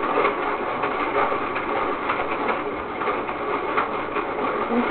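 Toy DQ ice cream maker being cranked by hand, giving a steady churning, grinding rattle from the crushed ice and the plastic mechanism, with small irregular clicks.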